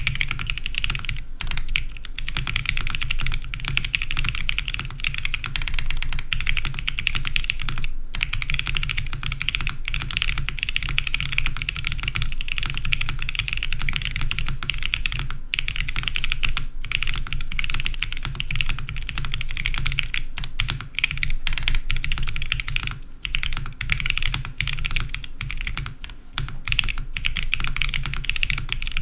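Fast, continuous typing on a mechanical keyboard with KTT Phalaenopsis tactile switches, polycarbonate case and aluminium plate. The switches are factory lubed and bottom out on their rails, which the owner hears as a thin sound with a mushy bottom-out. A few brief pauses break the typing.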